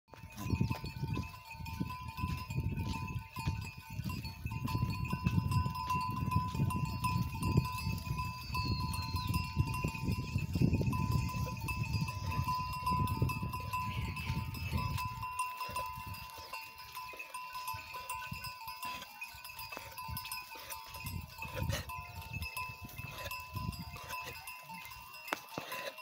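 Large herd of goats on the move, bleating, with a low rumble that drops away about fifteen seconds in.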